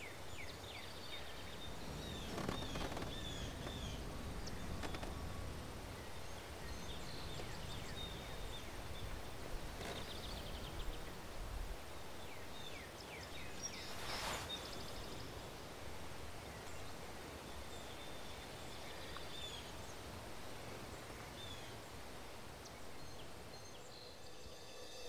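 Quiet outdoor ambience: a low steady background with scattered short bird chirps throughout, and a few faint knocks.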